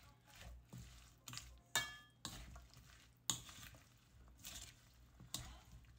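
A few sharp clinks and knocks of hard objects, the one about two seconds in ringing briefly, over a low steady hum.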